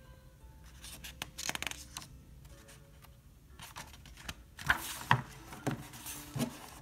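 A paper page of a hardcover picture book being handled and turned, with soft rustles and small taps, busiest near the end.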